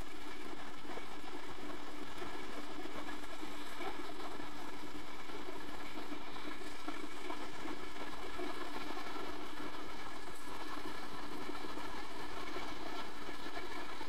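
Steady machine hum with one constant droning tone, unchanging throughout, from electrical workbench equipment running continuously; no separate tool sounds stand out.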